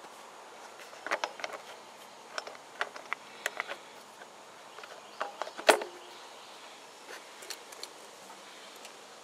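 Black plastic air filter cover being pressed and fitted onto a Champion portable generator's air cleaner housing: a series of short plastic clicks and knocks, the loudest a little past halfway.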